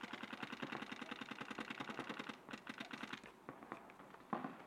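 Paintball markers firing in a fast, even stream of about ten shots a second, then slowing to scattered shots after about two and a half seconds, with a louder shot near the end.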